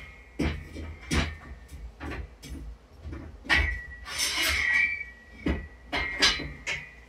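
Heavy steel lifting chains clanking as they are handled: a string of metallic clinks and knocks, with a longer rattle of links a little past the middle.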